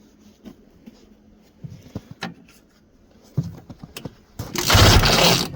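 Snowmobile recoil starter pulled twice, briefly turning the 1971 Ski-Doo Olympic's engine over during a spark check, with clicks between the pulls. Near the end comes a loud clattering crash about a second long as something falls over.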